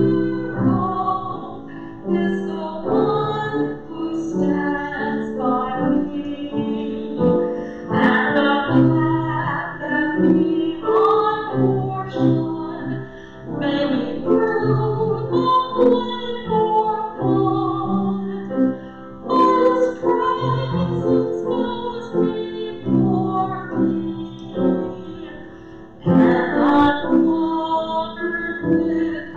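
A grand piano being played: a continuous piece with sustained chords and a moving melody line.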